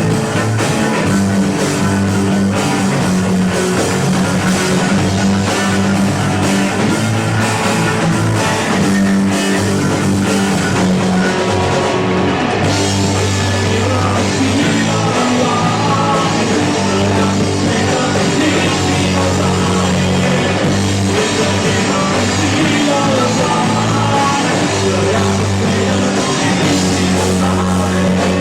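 Live rock band playing an instrumental passage: distorted electric guitars, bass and drum kit, loud and steady.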